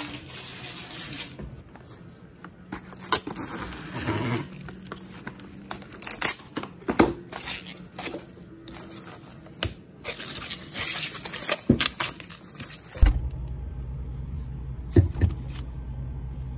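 Plastic cling wrap pulled from its box, torn off and crinkled as it is stretched over a bowl, with scrapes and taps of handling. A low steady hum starts about three-quarters of the way through.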